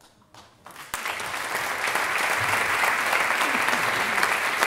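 Audience applauding in a theatre: clapping starts about a second in, swells quickly, then holds steady and loud.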